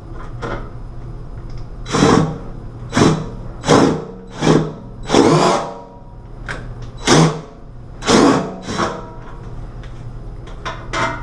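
DeWalt cordless drill/driver run in about eight short spurts of under a second each, driving screws through the side of a recessed medicine cabinet to fasten it into the wall.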